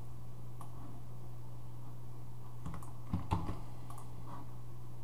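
A few scattered clicks from a computer keyboard and mouse over a steady hum, with a small cluster of clicks a little after the middle.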